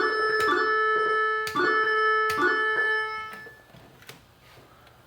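Electronic organ-like sound effects from a Bally AS-2518-50 pinball sound board, played through the machine's speaker. Several steady pitched tones are struck in quick succession, each held for a second or more and overlapping, with sharp clicks at some of the strikes. The tones stop about three and a half seconds in.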